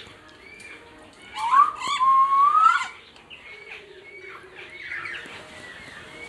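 Several cockatiels chirping, with one loud, drawn-out call starting about a second and a half in that wavers and climbs in pitch.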